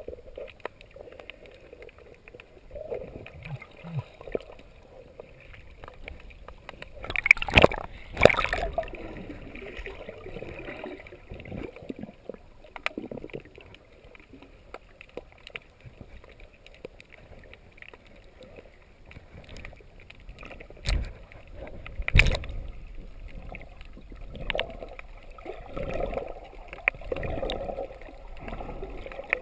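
Muffled underwater water noise around a submerged camera, swelling and fading with gurgling water movement. Sharp knocks cut through it twice about seven to eight seconds in, the loudest sounds, and twice more a little past twenty seconds.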